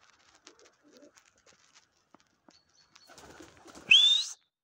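Faint pigeon cooing with scattered light clicks, then near the end a short, louder rising whistle-like chirp, after which the sound cuts off suddenly.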